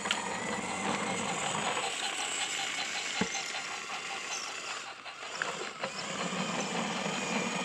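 Battery-powered Trackmaster toy train running on plastic track: a steady motor whir with wheel noise, and a single sharp click about three seconds in.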